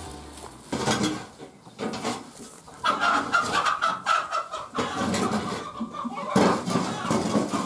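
Chickens clucking, with scraping and knocking as a scoop shovels out the bedding litter on the coop floor.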